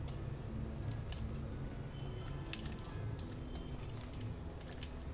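Pieces of diced tomato and green capsicum dropped into a pot of simmering chicken curry, landing with a few soft wet plops and sharp clicks over a steady low rumble.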